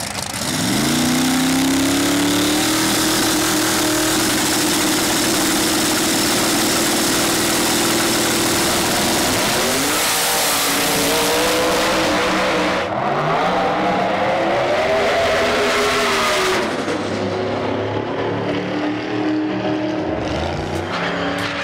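Twin-turbo big-block Hemi Camaro drag car and a nitrous Firebird launching side by side and running at full throttle. The pitch climbs sharply at the launch and holds, then dips and rises again with several gear changes, going quieter and duller near the end as the cars run away down the strip.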